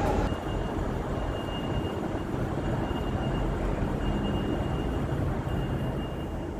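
Stationary Class 455 electric multiple unit humming steadily at the platform, with a faint high beep that repeats about every second and a half.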